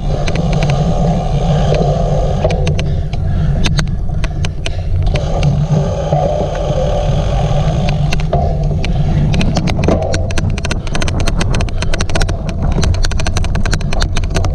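Loud, steady low rumble of a cyclocross bike being ridden over rough ground, crossed by many sharp, irregular clicks that come thicker in the second half: an odd clicking noise.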